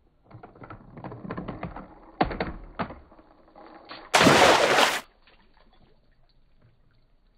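Small plastic toy car rattling and clacking as it rolls down a plastic toy garage ramp, with two sharper knocks partway through. About four seconds in there is a much louder burst of noise lasting about a second.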